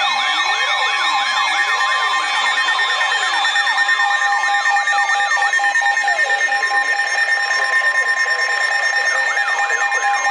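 Emergency Alert System alert for a Blizzard Warning sounding from a radio: layered siren-like tones, a slow up-and-down wail and quick repeated rising sweeps, over steady alert tones. The quick sweeps fade out around the middle and come back near the end.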